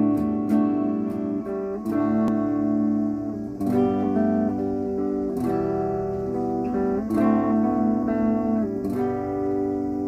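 Aria Pro II TA-TR1 semi-acoustic guitar strumming chords, a new chord struck about every two seconds and left to ring, the last one fading out near the end.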